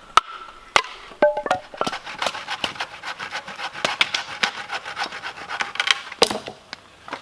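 Bushcraft knife working into dry, solid wood: a quick run of short cracks and scraping strokes that goes on for several seconds, then stops.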